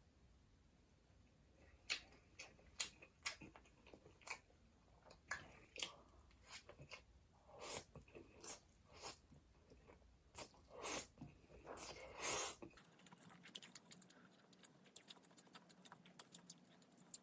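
Close-miked chewing and mouth sounds of a person eating: a string of irregular clicks and smacks for about ten seconds, then only faint ticking for the last few seconds.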